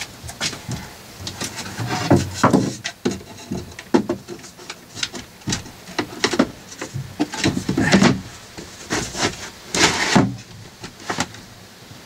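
Irregular knocks, clicks and scrapes of a white panel being handled and fitted over the battery cases and bus bars inside a cramped under-seat compartment, with a few sharper knocks about two, four and eight seconds in.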